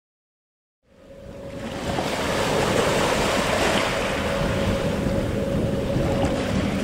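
Wind rushing over the microphone with waves on the water, fading in about a second in, with a steady hum underneath.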